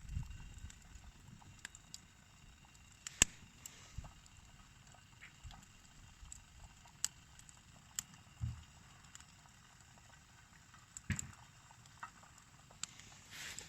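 Sparse sharp clicks and small knocks over a quiet background, the loudest about three seconds in and another cluster about eleven seconds in.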